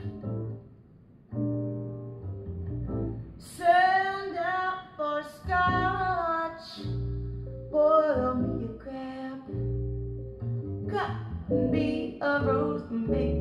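A vinyl jazz record playing back through a pair of bookshelf speakers: low bass notes under a woman singing long, wavering phrases that come in about three and a half seconds in.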